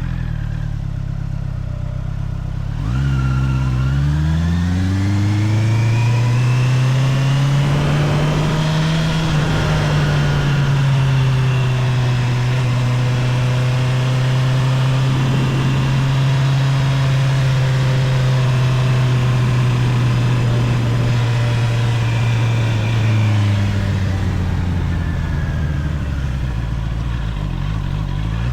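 Stock Honda CBR650R inline-four engine, heard from the rider's position. It idles low and even, then pulls away with the pitch climbing for several seconds. It eases slightly and holds a steady cruise, drops in pitch as the throttle rolls off about 23 seconds in, and starts to rise again near the end.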